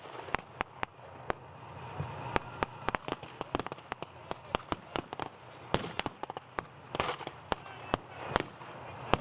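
Scattered blank small-arms gunfire: sharp single shots, a few a second at uneven intervals, some in quick pairs and runs.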